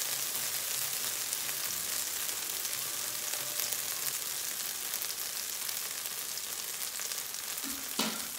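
Minced garlic frying in oil and butter in a stainless steel pan: a steady sizzle full of fine crackles.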